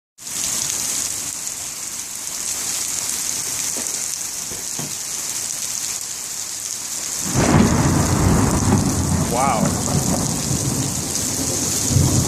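Steady rain hiss, then about seven seconds in a thunderclap breaks and rumbles on, low and heavy, to the end.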